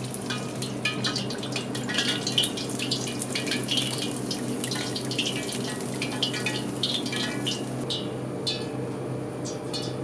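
Flour-coated fish deep-frying in hot oil as tempura: dense, irregular sizzling crackles and pops that thin out near the end. A steady low hum runs underneath.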